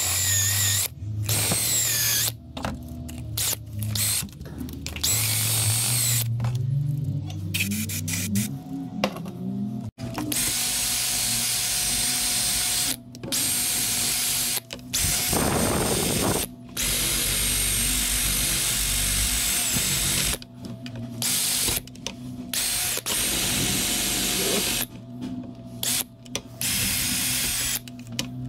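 Hand-held power tool running in repeated bursts, switched on and off many times, cleaning carbon deposits off a two-stroke brush cutter's cylinder.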